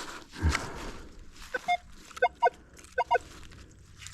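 A metal detector giving short electronic beeps over a dug target hole: one beep, then two quick pairs, after a dull thud of digging about half a second in.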